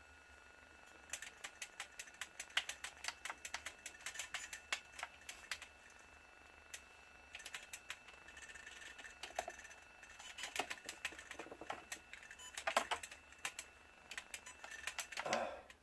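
Irregular light clicks and taps from hands working on a drone's gimbal and camera, with a faint steady high-pitched whine behind them.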